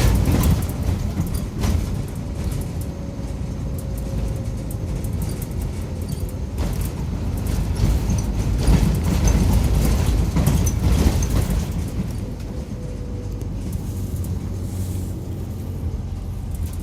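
Mitsubishi Fuso Aero Midi MK route bus running, heard from inside the cabin: diesel engine and road noise with scattered rattles and clicks from the bodywork. It grows louder about eight to eleven seconds in, then eases off.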